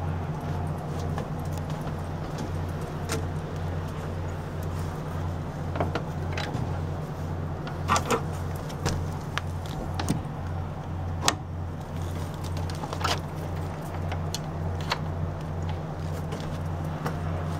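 Stainless steel latch and hook hardware on a boat's hatch panel giving several sharp metal clicks and clinks as a hand works it, the loudest about halfway through. Under it runs a steady, low, evenly pulsing engine hum.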